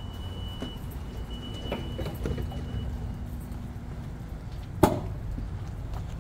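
Bombardier BiLevel commuter train standing at the platform with a steady low rumble. A thin high tone stops about three seconds in, and about five seconds in there is one sharp bang as a coach door shuts.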